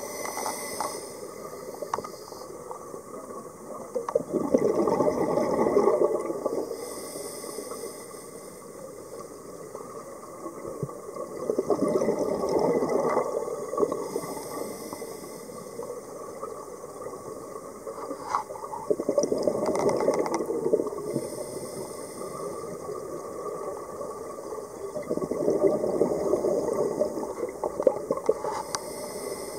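Scuba diver breathing through a regulator underwater: a rush of exhaled bubbles about every seven seconds, four breaths in all, with a fainter hiss from the regulator between them.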